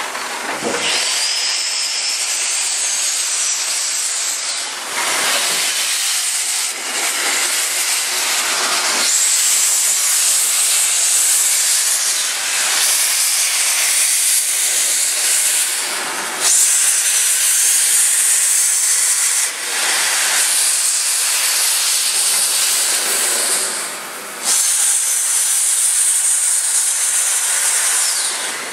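East Broad Top steam locomotive No. 15, a Baldwin 2-8-2, venting steam low down around its running gear with a loud, steady hiss. The hiss breaks off briefly several times and comes back.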